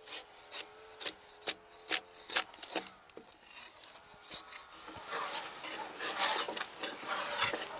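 Drawknife shaving bark off a green log in repeated pulls, a sharp scrape about twice a second at first, then a quicker, denser run of scraping near the end.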